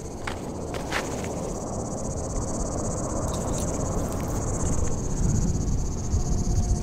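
Crickets chirping steadily at night. Under them is a low rumble on the microphone that grows louder in the second half, with a few sharp clicks near the start.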